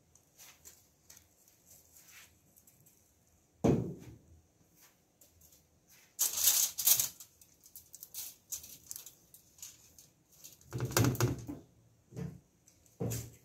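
Kitchen handling sounds as BBQ rub is shaken and sprinkled over lamb chops on a foil-lined baking tray: small clicks and taps, a thump about a third of the way in, and two short crackling, rattling bursts, one a little past the middle and one near the end.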